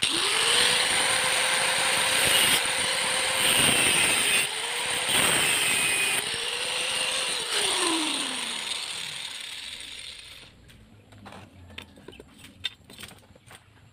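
Angle grinder switched on and cutting metal, a steady high whine with heavy grinding noise, its pitch dropping briefly about four and a half seconds in. Near eight seconds in it is switched off and winds down, leaving light clicks of the workpiece being handled.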